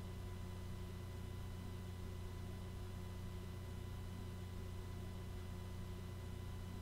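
Steady low electrical hum with a faint even hiss, unchanging throughout; no distinct strokes or other events stand out.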